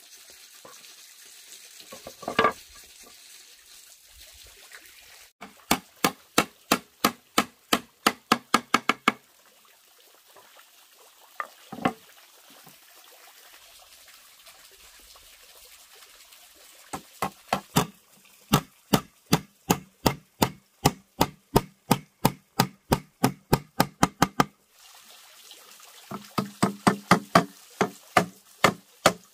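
Hammer driving nails into the wooden planks of a table top, in quick runs of strikes about three to four a second, with single knocks between. A faint steady splashing of water from a small pond fountain runs underneath.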